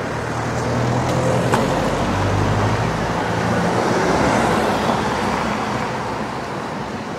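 A car driving slowly past close by: a low engine hum for the first few seconds, then engine and tyre noise swelling about four seconds in and fading away toward the end.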